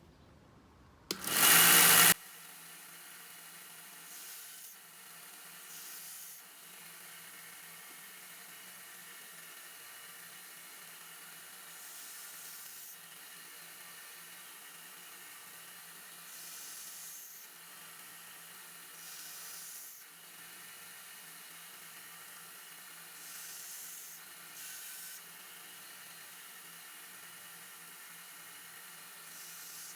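Harbor Freight 1x30 belt sander starting with a loud burst about a second in, then running steadily while the small blade of a pocketknife is held to the belt to grind its point back. Short hissy surges come and go every few seconds as the steel touches the belt.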